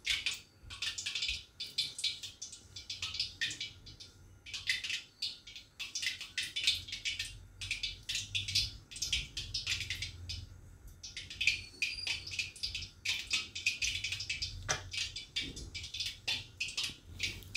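A hand rubbing and crumbling dry gram flour with a little oil in a stainless steel bowl, working the oil into the flour before water is added. A quick, irregular dry rustling scrape, fingers brushing the flour against the bowl.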